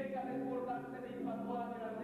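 A chorus of voices singing a cappella, a moving chant-like line over a steady low note held beneath it.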